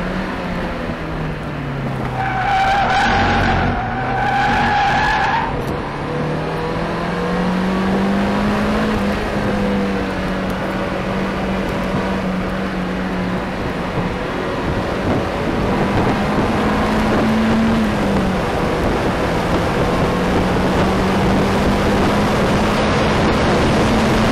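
Mazda MX-5's four-cylinder engine pulling hard, heard from inside the car. About two seconds in, the tyres squeal for around three seconds as the car takes a bend. The engine note then climbs as the car accelerates and holds steady down the straight, with a brief dip near the end.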